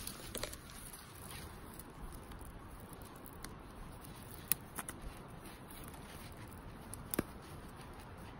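A green vine being bent and twisted into a hoop by hand gives a few faint crackles and clicks. The sharpest come a little after four and a half seconds and again at about seven seconds, over a quiet steady hush.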